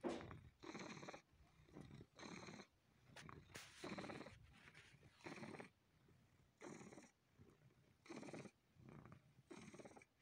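Tabby house cat purring close to the microphone, in regular pulses about one every second and a half.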